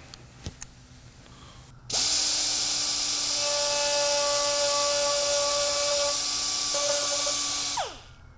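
Pneumatic die grinder with a carbide burr cutting a V-groove into a plastic headlight tab. It starts suddenly about two seconds in, runs steadily with a high whine and air hiss, then winds down with a falling pitch near the end.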